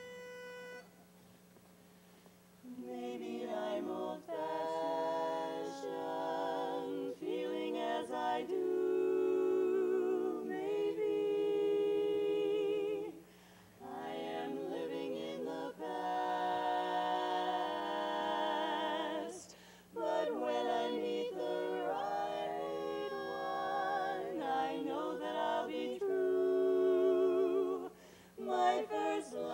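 A short single note on a pitch pipe, then a women's barbershop quartet singing a cappella in four-part close harmony. The singing starts about three seconds in, with brief breaths between phrases.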